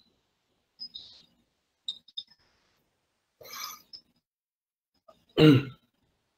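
Small scattered clicks and clinks, then a short noisy burst about three and a half seconds in and a louder single burst near the end. Each cuts in and out abruptly, as through a video-call microphone with noise suppression.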